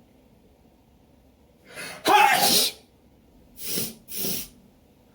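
A person's allergy sneeze, brought on by pollen: a short in-breath about two seconds in, then one loud sneeze, followed by two short, noisy breaths.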